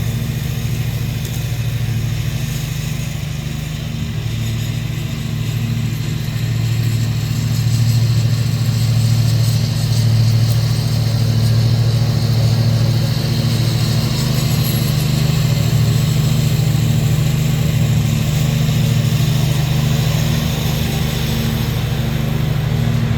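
Briggs & Stratton Intek V-twin engine of a zero-turn mower running steadily, with a strong, even low hum. It gets a little louder about seven seconds in.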